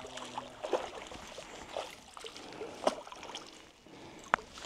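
Light splashing and sloshing of creek water with scattered small knocks, as a hooked bass is worked out of weed. A single sharp click sounds near the end.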